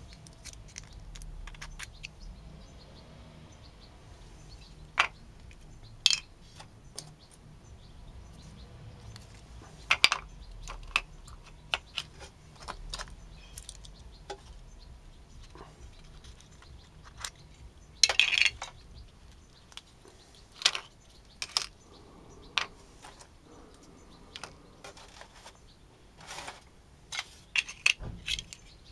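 Small orgonite pucks, resin cast in aluminium tealight cups, clinking and tapping against each other and the metal tray as they are handled, in scattered sharp clicks a few seconds apart. The clicks come in a quick run near the end.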